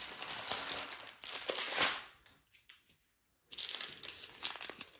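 Strips of sealed plastic bags of diamond-painting drills crinkling and rustling as they are handled. The rustling stops for about a second in the middle, then starts again.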